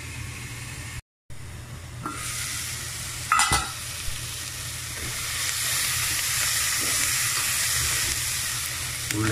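Sliced onions frying in coconut oil in a pan, a steady sizzle. About three and a half seconds in, a metal pan lid clinks as it is lifted, and the sizzling grows louder and brighter.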